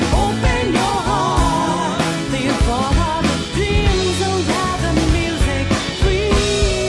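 Background music: a song with a sung vocal line over a rock-style band with drums and a steady beat.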